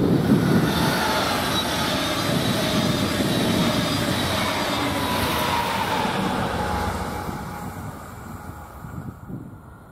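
Double-deck regional push-pull train passing at speed: a steady rush of wheels on rails with a faint whine that slides down in pitch. The noise fades away after about seven seconds as the train recedes.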